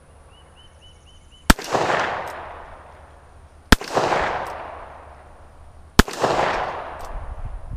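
Rock Island Armory M200 .38 Special revolver fired three times, about two and a quarter seconds apart, each shot cracking sharply and followed by an echo that fades over a second or so.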